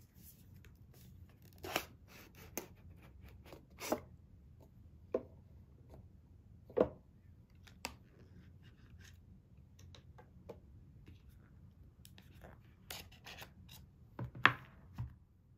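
Cardboard packaging being handled and opened around a small speaker: a string of light taps, scrapes and rubs of card, the loudest near the end.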